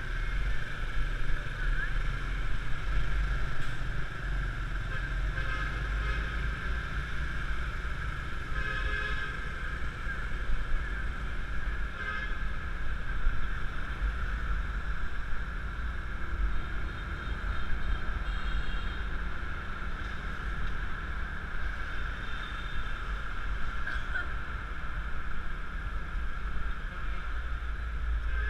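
Yamaha Mio Classico scooter's small single-cylinder engine running under way, with steady wind rumble on the helmet-mounted action camera and general traffic noise around it.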